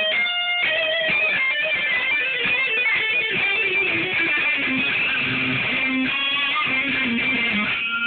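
Electric guitar played through an amplifier in fast shred-style lead runs, the notes changing rapidly, with one note held on its own for a moment about half a second in.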